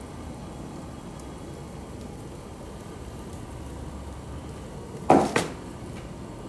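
Potter's wheel turning with a steady low hum while a metal rib and wet fingers shape the rim of a wild-clay pot. About five seconds in there is a short, loud noise in two quick pulses.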